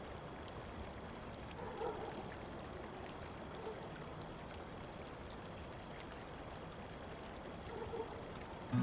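Faint steady hiss of background ambience, with a couple of soft brief sounds about two seconds in and near the end.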